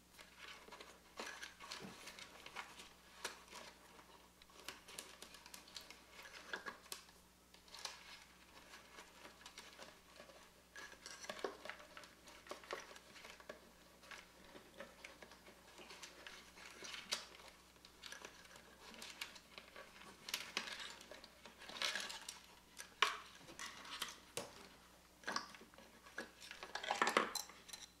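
Hard plastic and metal parts of a Saeco espresso machine being handled and worked loose inside its opened plastic housing: irregular clicks, taps and small clatters, busiest and loudest in the last few seconds.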